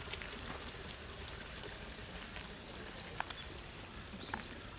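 Steady outdoor ambient hiss with a few faint clicks, one about three seconds in and another about a second later.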